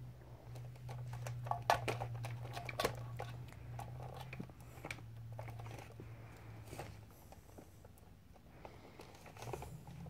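Light scattered clicks and rustles as a kitten bats and claws at a string toy on carpet, busiest in the first few seconds, over a low steady hum.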